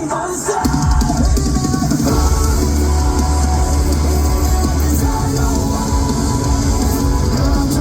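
Live metalcore band playing loud: distorted electric guitars, bass and drum kit together, with heavy, steady low end after a brief dip in loudness right at the start.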